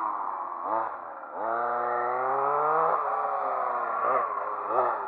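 Large-scale RC car's small engine, fitted with long gearing, revving under throttle. It blips briefly, then climbs in pitch in one long pull for about a second and a half, drops back, and blips up and down again near the end.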